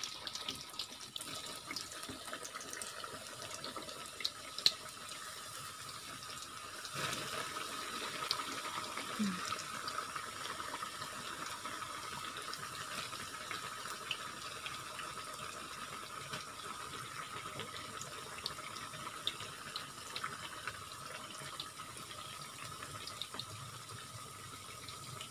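Thin slices of beef meatball deep-frying in hot oil in a wok, just put in: a steady sizzle with scattered crackles and pops.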